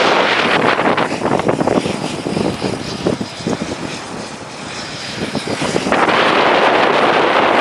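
Turboprop engines and propellers of a taxiing de Havilland Canada DHC-6 Twin Otter, with strong wind buffeting the microphone. The wind eases about a second in, letting the aircraft through more clearly, and returns abruptly about six seconds in.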